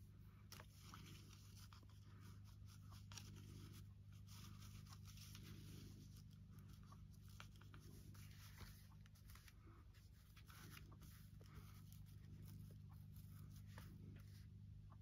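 Faint rustling and light taps of paper and lace being handled and positioned, over a steady low hum.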